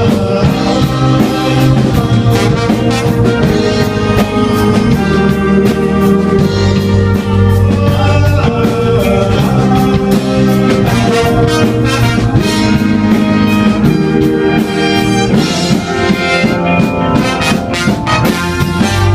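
Instrumental break of a rock song played by a live band, with brass instruments carrying the melody over drum kit and guitar.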